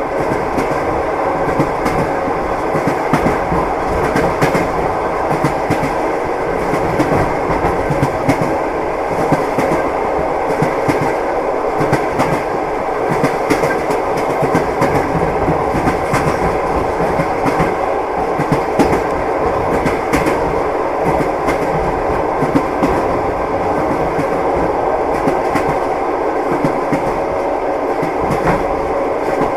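A train running along the track: the steady rumble of a railway carriage with the clickety-clack of its wheels over the rail joints.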